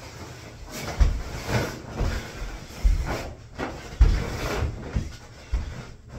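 A string of soft, irregular thumps with rustling, roughly one a second.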